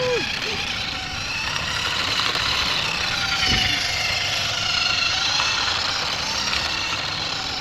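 Toy remote-control car's small electric motor whining, its pitch wavering as the throttle changes, with its wheels running over bumpy ground. A single low knock about halfway through.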